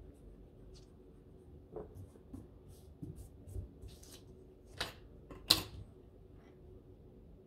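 A plastic ruler being shifted and laid down on a paper worksheet on a desk: paper rustling, with a few light scrapes and taps. The loudest knock comes a little past halfway, when the ruler is set back down.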